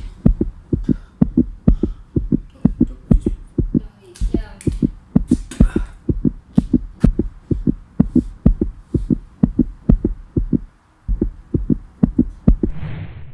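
Music with a fast, regular bass beat of about three hits a second and short snatches of voice over it. Near the end the beat stops for a moment, then comes back.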